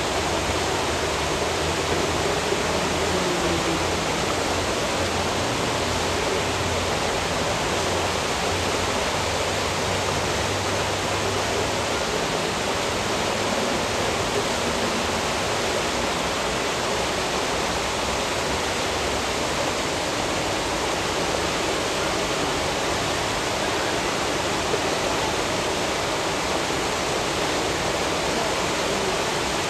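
Rushing, churning water making a steady, even roar.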